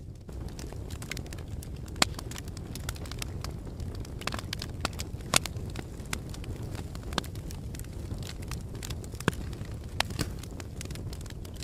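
Fire burning in a fireplace: a steady low rumble under constant small crackles, with a few sharp, louder pops scattered through.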